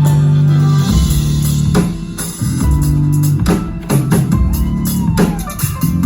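Loud band music with a drum kit hitting sharply over held bass notes, with guitar.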